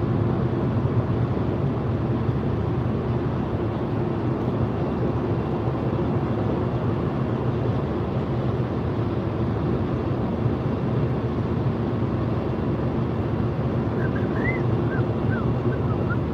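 Steady road and tyre noise of a car cruising at motorway speed, heard from inside the cabin, with a low steady hum underneath.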